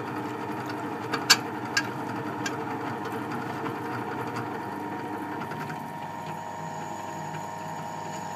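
Bench drill press running steadily, its spinning bit pressed down onto a ceramic-coated steel plate, with a few sharp clicks about a second in as the bit meets the plate. Near six seconds the sound drops slightly and a faint high whine comes in. The bit is rubbing on the coating rather than cutting through, which the maker credits to the ceramic coating's protection.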